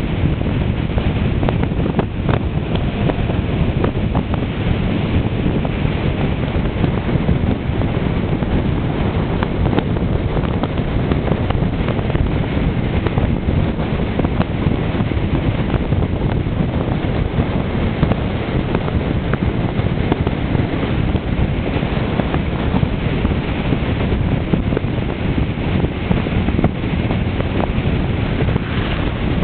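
Steady wind buffeting the microphone of a camera on a moving vehicle, a dense low rumble that does not let up.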